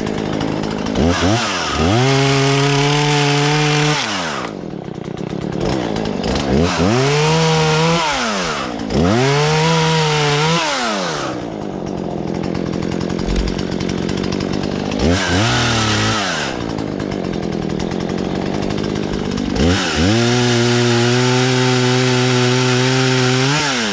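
Husqvarna 120 Mark III two-stroke chainsaw revving up to full throttle five times, each burst held for one to four seconds while cutting limbs and dropping back to idle in between.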